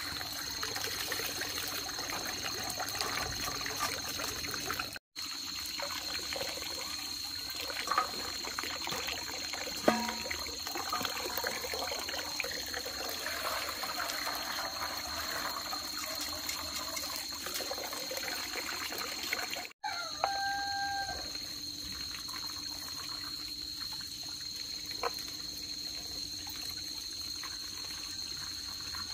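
Running water trickling and splashing steadily, with a steady high-pitched whine above it; the sound cuts out briefly twice.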